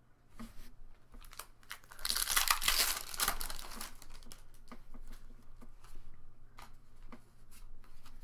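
A Pokémon booster pack's foil wrapper being torn open and crinkled, loudest for about two seconds near the middle, followed by light rustling and clicks as the cards are handled.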